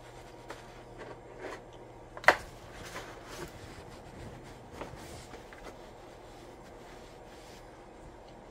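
Hands fitting a battery and wires into a foam RC plane fuselage: light rustling and scattered small clicks, with one sharp click about two seconds in, over a faint steady hum.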